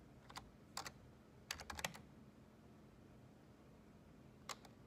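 Faint computer keyboard keystrokes in short clusters: a couple of taps near the start, a quick run of several about two seconds in, then two more near the end.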